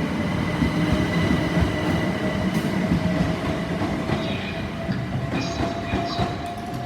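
Class 375 Electrostar electric multiple unit pulling away from the platform. Its traction motors give a steady whine that rises slightly in pitch, over rumbling running noise, with a few clicks from the wheels in the second half.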